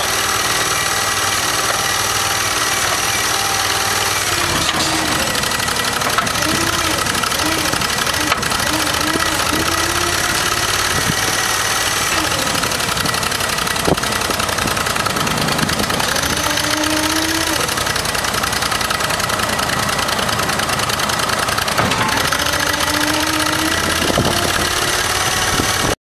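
Kohler Command 25 hp engine of a truck-mounted Bradco backhoe running steadily, driving the hydraulics. From about five seconds in, a wavering whine rises and falls as the boom and bucket are worked.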